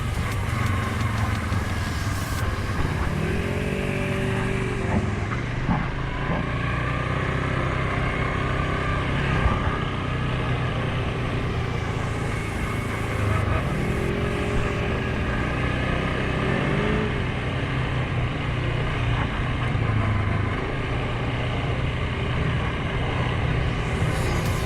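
ATV engine running on a trail, likely the 2019 Suzuki KingQuad 750's single-cylinder engine, which is steady most of the time. Its pitch rises and falls as the throttle is worked, in a few revs a few seconds in and again about halfway through.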